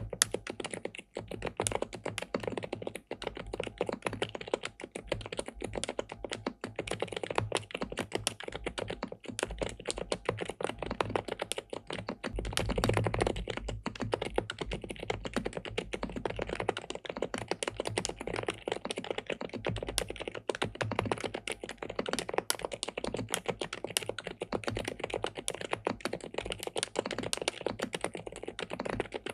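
Continuous fast typing on an SPM PL87W Mongdol tenkeyless mechanical keyboard with linear switches on a polycarbonate plate: a dense, unbroken run of key clacks, a little louder and heavier about halfway through.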